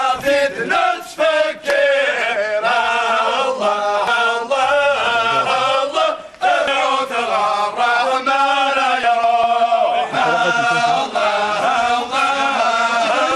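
A group of men chanting together in unison, a steady flow of long sung phrases with short breaks between them.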